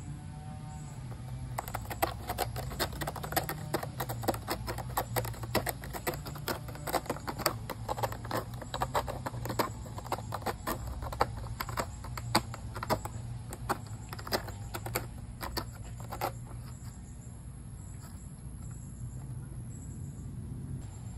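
A cat working at a corrugated cardboard scratcher dusted with catnip: a long run of sharp, irregular clicks and crackles of cardboard, several a second, that stops about sixteen seconds in.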